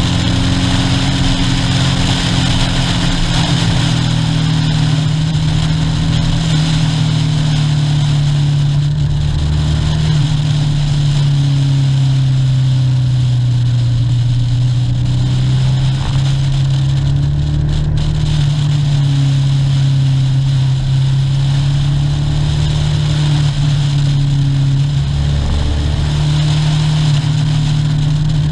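Motorcycle engine running steadily while riding, its pitch easing down and climbing back up a few times as the speed changes.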